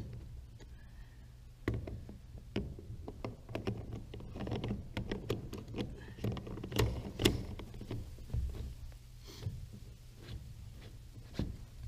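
Hands working a bulkhead fitting, gasket and nut into the wall of a plastic rainwater tank: irregular clicks and knocks of plastic parts against the tank, loudest about seven seconds in.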